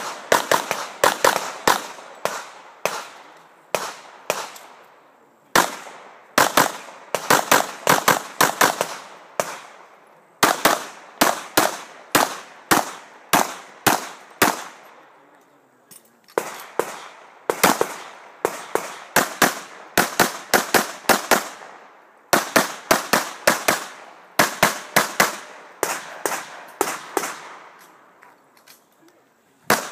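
Handgun fired in rapid strings of shots, several a second, broken by short pauses of about a second between strings.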